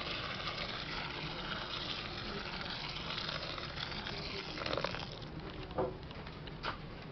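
Hot water pouring in a steady stream onto fresh noodles in a plastic tub, splashing among the strands. The pour thins out about five seconds in, and a few light knocks follow.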